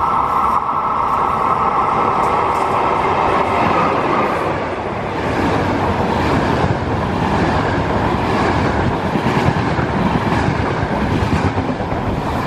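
Intercity passenger train passing through a station at speed. A steady high whine is strong for the first four seconds or so. Then comes a loud rumble with clacks of the coaches' wheels over the rail joints as the carriages go by.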